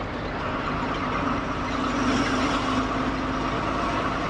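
Truck's engine and road noise heard from inside the cab while driving at a steady pace: an even drone with a held hum, rising a little in level about two seconds in.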